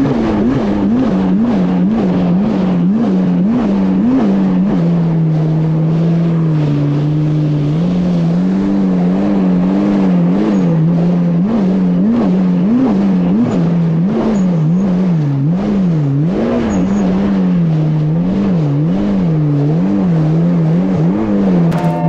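Yamaha GP1800R SVHO jet ski's supercharged four-cylinder engine running under way, with rushing water from the hull and pump. The engine note wavers up and down about twice a second, holding steadier for a few seconds in the middle.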